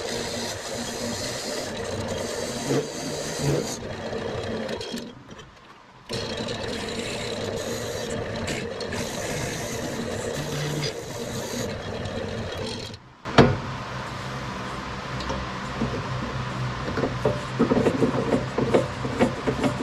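An old Craftsman wood lathe running while a hand-held turning chisel cuts a spinning maple blank, a steady scraping and shaving over the motor's hum. The sound drops away briefly about five seconds in, and there is a sharp click about thirteen seconds in. The last few seconds are more broken and scratchy.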